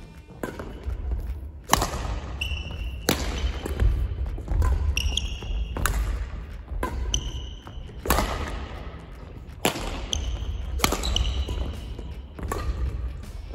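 Badminton rally: sharp racket strikes on the shuttlecock about every second or so, with short shoe squeaks on the court floor and thudding footsteps between them.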